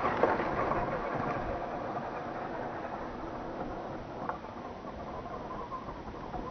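Tamiya CC-01 Unimog radio-controlled truck driving over stony dirt, its electric motor and 4WD drivetrain running with a steady whine and noise that fades as the truck moves away.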